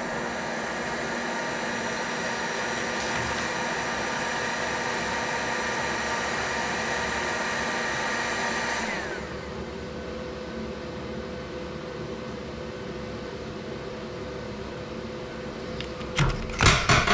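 An electric motor runs steadily with a whine, then is switched off about nine seconds in and winds down with a falling tone, leaving a steady low hum. Near the end comes a short, loud burst of clattering.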